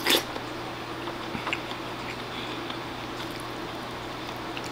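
A short slurp as a spoonful of mapo tofu on rice is taken from a wooden spoon, then quiet chewing with a few faint ticks of the wooden spoon in the ceramic bowl, over a steady low hum.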